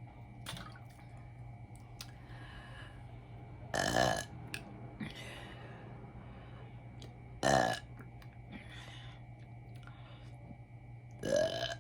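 A woman belching three times, short loud burps about half a second each, spaced roughly three and a half to four seconds apart, brought up by gulping carbonated soda.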